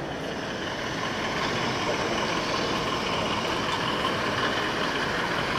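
Sound-fitted OO gauge model diesel locomotive playing a diesel engine idling sound through its small speaker: a steady hum with a faint whine, over exhibition-hall crowd noise.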